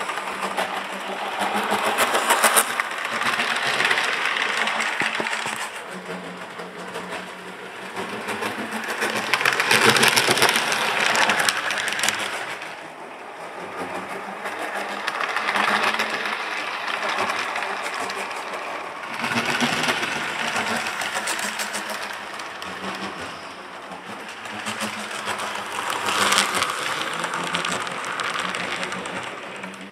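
Model trains running past at close range: a small electric motor hum with rapid clicking of metal wheels over the rails, swelling and fading several times as the cars pass.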